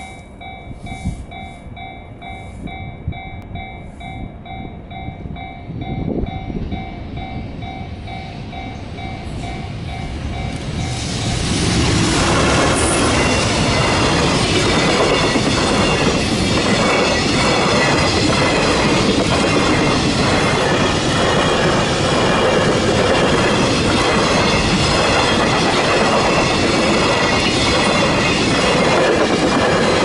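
A level-crossing warning bell rings in a steady repeating beat. From about eleven seconds in, a JR Freight container train hauled by an EF210 electric locomotive runs past loud, its wagon wheels clicking in a steady rhythm over the rail joints and drowning out the bell.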